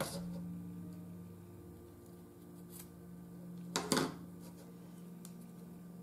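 Scissors snipping through washi paper tape at the very start, a light tick, then a louder double clack with a short ring as the scissors are set down on the cutting mat a little before four seconds in. A faint steady low drone sits underneath.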